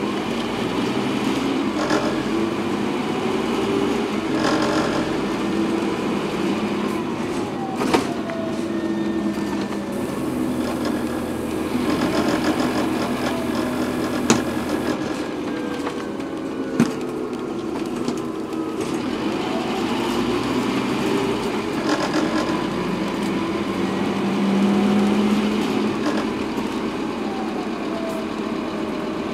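Scania N230UD double-decker bus heard from inside the passenger saloon while under way: the engine runs over road rumble, with a whine that glides up and down several times as the bus speeds up and slows. Three sharp knocks or rattles cut through it.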